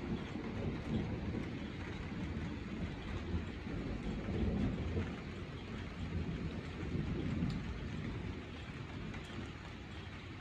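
Steady rain, with a low rumble of distant thunder swelling and fading underneath.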